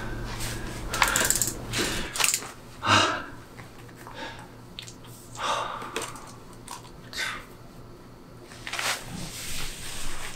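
Scattered rustles, clicks and soft knocks of small handling and movement, coming irregularly every second or two.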